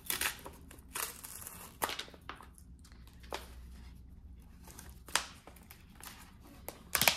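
Plastic tool-kit pouch crinkling in irregular bursts as it is handled and torn open.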